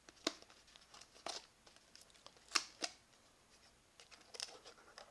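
Kitvision Splash action camera in its clear plastic housing being worked out of its cardboard box: a few quiet, short scrapes and clicks of plastic against card.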